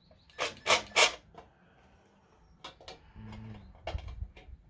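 Ratchet wrench with an 8 mm socket working a bolt loose: three sharp ratcheting strokes in the first second, then faint rubbing and a few dull knocks of tool on metal near the end.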